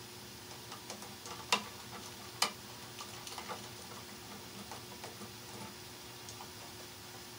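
Small clicks and scratchy handling noises of a stripped wire loop being worked onto a light switch's screw terminal, with two sharper clicks about a second and a half and two and a half seconds in.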